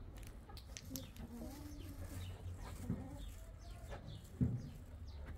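Livestock bleating in several short wavering calls over a low steady rumble, with one louder short sound about four and a half seconds in.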